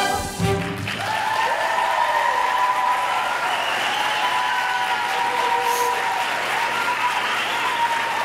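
Live audience applauding and cheering, with wavering whoops over the clapping, just after the show tune's final chord cuts off about half a second in.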